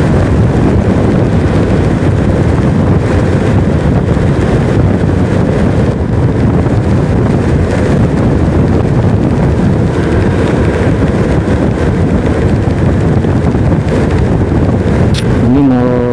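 Steady wind rush on the microphone of a moving motorcycle, mixed with the motorcycle's engine and road noise.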